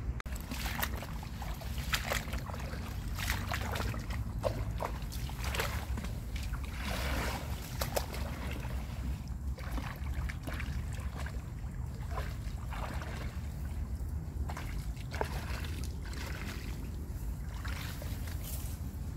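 Irregular splashing and sloshing of shallow muddy water as hands work in it, with scattered sharp clicks and rustles, over a steady low rumble of wind on the microphone.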